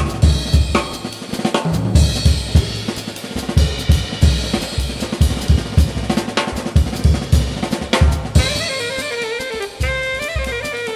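Yamaha jazz drum kit played as a fast solo, dense strokes on snare, bass drum, toms and cymbals with rimshots. About eight seconds in, an alto saxophone comes in over the drums with quick, stepping bebop lines.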